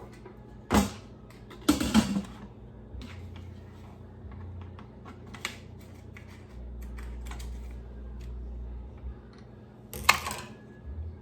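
Scissors and packaging being handled: a sharp click about a second in, a louder cluster of clicks and scrapes about two seconds in, scattered light clicks, and another sharp noise near the end.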